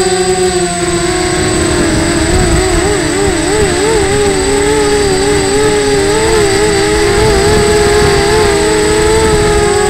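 Mini T4 quadcopter's motors and propellers whining, heard through the onboard camera. Their pitch sags about a second in, wavers quickly up and down for a few seconds as the throttle shifts, and climbs back near the end, over rough wind rush on the microphone.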